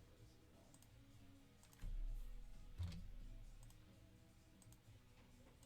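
Faint scattered clicks, like a computer mouse or keyboard being used, with a low thud and brief rumble about two seconds in.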